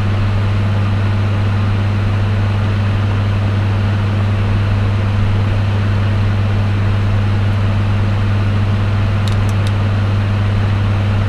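A steady, loud, low hum, unchanging throughout, with a few faint clicks about nine seconds in.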